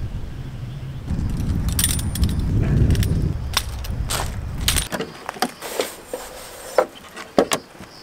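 A series of sharp clicks and taps as a mosquito net and gear are handled at the open tailgate of a camper van. A low rumble underneath stops about five seconds in.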